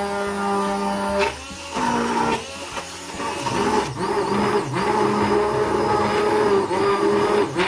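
Electric hand blender running in a thick lentil batter in a glass jug. The motor hum cuts out about a second in and starts again several times, its pitch wavering with the load.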